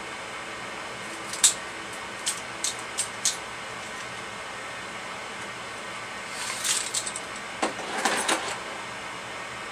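Cigar cutter and cigar being handled close to the microphone: a sharp click, then four quick small clicks, then two short bursts of rustling and scraping, over a steady faint hiss.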